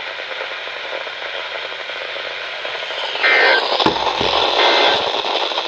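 Weather radio receivers hissing with static, then about three seconds in the EAS end-of-message data bursts: short, harsh digital screeches, two of them about a second and a half apart, closing the weekly test broadcast. A couple of low thumps fall between the bursts.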